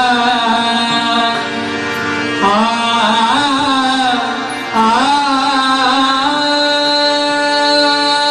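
Marathi devotional abhang music: a singer's voice sliding in ornamented glides over held instrumental notes.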